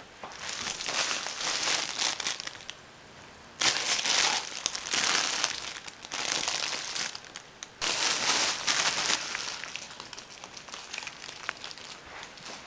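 Fabric crinkle tunnel for cats crinkling and rustling as a cat scrambles in it. The sound comes in irregular bursts, with a short lull about three seconds in, and it fades toward the end.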